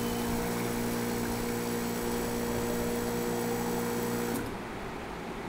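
Digital liquid filling machine's electric pump running with a steady hum while it fills a plastic bottle, cutting off abruptly about four seconds in as the timed fill ends.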